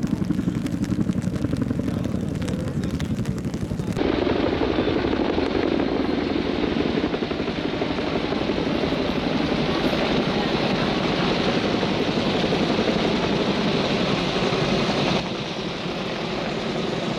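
A formation of military helicopters, AH-1 Cobra attack helicopters among them, flying past overhead with a steady rotor and engine roar. The sound changes abruptly about four seconds in to a broader, hissier rush, and shifts again near the end.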